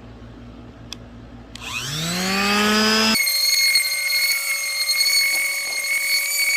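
A small, old electric sander switched on about one and a half seconds in, its whine rising as the motor spins up, then running at a steady high whine.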